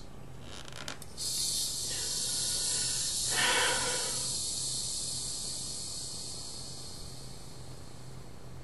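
Carbonation hissing out of a plastic Dr Pepper soda bottle as its screw cap is twisted loose: a few faint clicks from the cap, then a high hiss that starts about a second in, swells around three and a half seconds in and slowly dies away. The gas escapes as a hiss without a pop.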